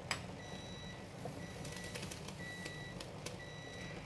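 Electronic cooking timer beeping, a high tone about once a second, signalling that the set boiling time is up. A few quick clicks come about halfway through, and the beeps sit over a low steady rumble.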